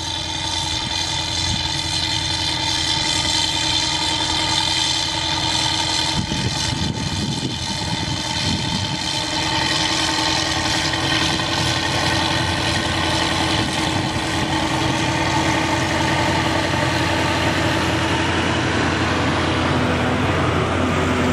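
Kirovets K-701M tractor's turbocharged V8 diesel running steadily under load while pulling a disc harrow, with a high whine over the engine note. A rougher low rumble swells about six seconds in, as it comes close and passes.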